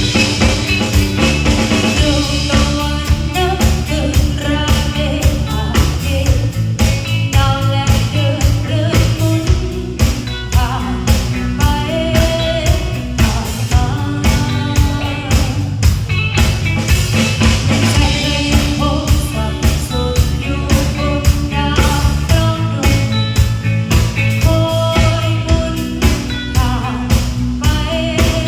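A live band playing, with a steady drum-kit beat, bass and a melody line over them.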